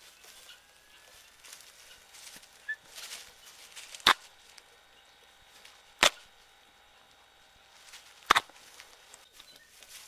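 Three sharp pecking taps, about two seconds apart, from emu chicks' beaks striking the camera, over a faint rustle of the chicks moving about in wood shavings.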